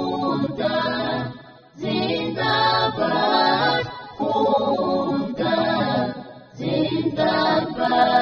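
Many voices singing a chant together in unison, in phrases of about two seconds with short breaks between them.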